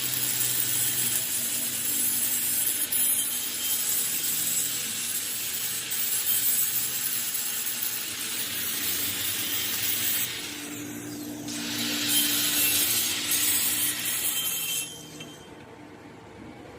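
A power tool working on metal: a steady, harsh hissing scrape that eases briefly about ten seconds in and drops away near the end.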